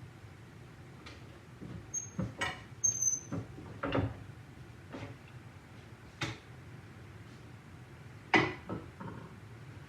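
Irregular knocks and clatters of wooden boards and tools being handled on a workbench, with one or two brief high squeaks near the start, during a seat-panel glue-up.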